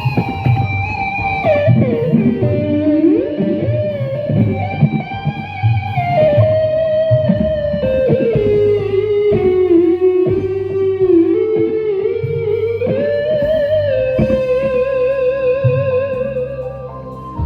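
Dangdut music played through a sound system: a single lead melody that slides and bends, with vibrato near the end, over a steady bass line.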